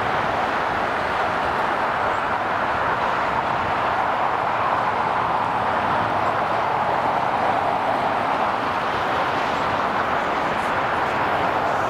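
Jet airliner engines at taxi power, a steady even rush.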